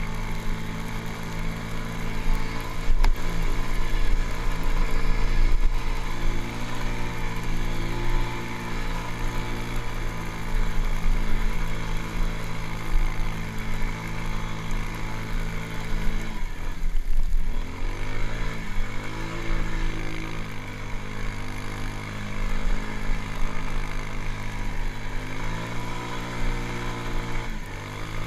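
Quad (ATV) engine running under throttle while riding. The revs drop sharply about sixteen seconds in and climb back within a couple of seconds, with a smaller dip and recovery near the end.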